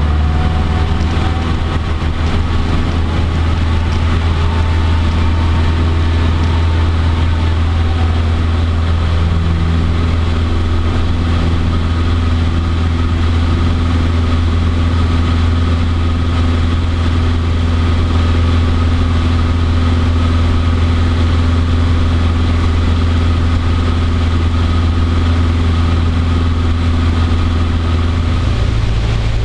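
Cessna 150D's four-cylinder Continental O-200 engine and propeller running at takeoff power, heard from inside the cabin as a loud, steady drone through the takeoff roll and climb-out. The pitch steps up slightly near the end.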